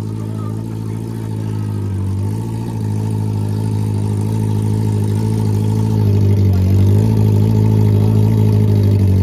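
Drag-racing motorcycle engine running at a loud, steady idle as the bike rolls up to the starting line. It grows gradually louder, and the pitch dips briefly about two seconds in.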